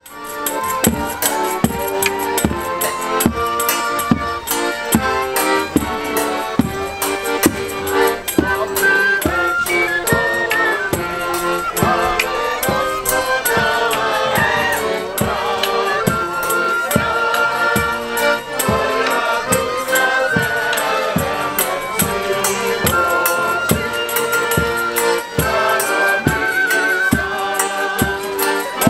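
Ukrainian folk band playing while marching: accordion, violin and wooden flute over a bass drum with a cymbal mounted on top, struck on a steady beat of about two strokes a second. The music fades in at the very start.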